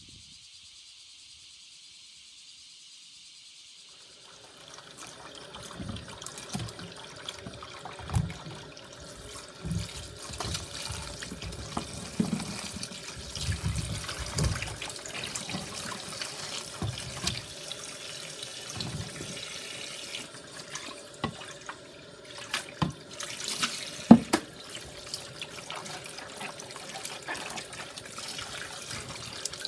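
Tap water running into a stainless steel basin in a sink, with splashing and irregular knocks as vegetables are rubbed and turned by hand in the water. The water starts about four seconds in.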